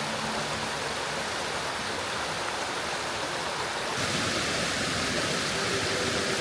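Steady rush of falling water from a tall mountain waterfall, getting a little louder about four seconds in.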